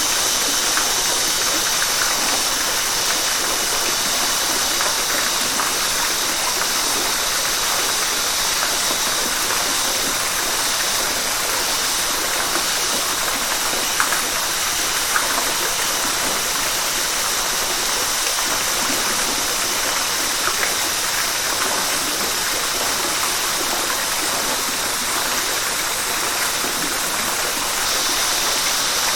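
Rushing river water: a steady, even hiss of flowing water with a few faint splashes.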